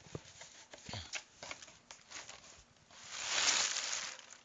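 Paper packaging being handled: scattered rustles and light taps, with a longer, louder paper rustle about three seconds in.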